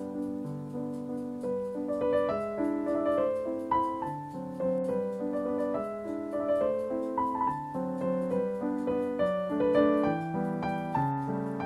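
Background piano music: a gentle melody of overlapping notes.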